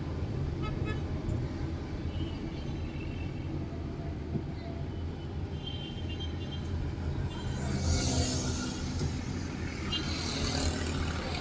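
Road traffic: a steady low engine and road hum, with vehicles swishing past about eight seconds in and again near the end.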